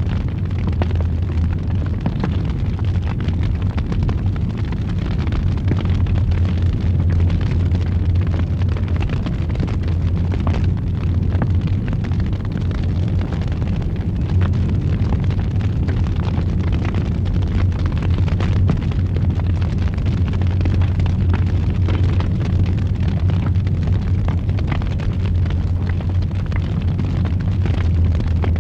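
Fire in a fireplace burning with a steady low roar, wood crackling and popping throughout.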